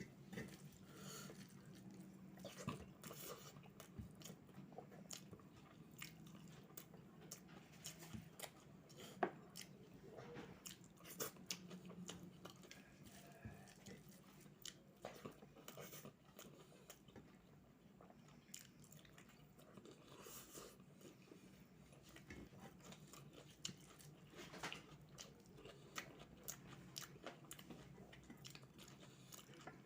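A person chewing and biting into crunchy food, with many irregular crisp crunches close to the microphone.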